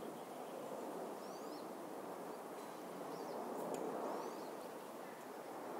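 Outdoor ambience: a steady rushing noise with a bird's short, high chirps repeating several times, each a quick falling note.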